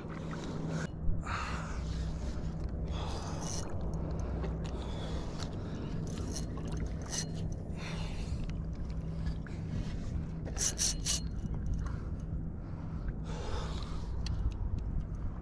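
Handling noises and water splashes at a paddleboard as a hooked fish is reeled in and brought alongside. Short scrapes and splashes come every few seconds, with a quick cluster of them near the end, over a steady low background.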